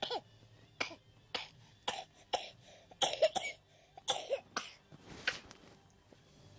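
A small child coughing repeatedly: about ten short, sharp coughs in irregular bouts, some in quick pairs.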